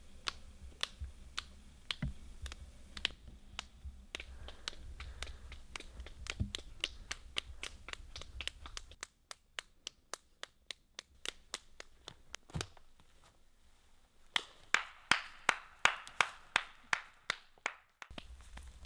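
A lone person clapping, single claps at a few a second, quickening partway through, with the loudest claps over the last few seconds.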